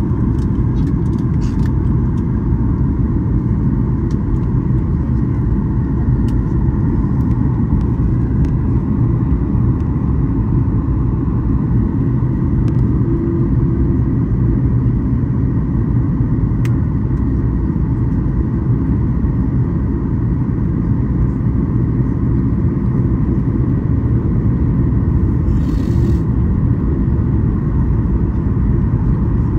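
Airliner cabin noise: the steady rumble of jet engines and airflow, with a faint steady whine above it.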